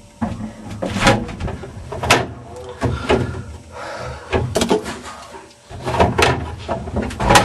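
A series of irregular knocks, bangs and clunks over a low rumble, like a door or other wooden fittings being handled.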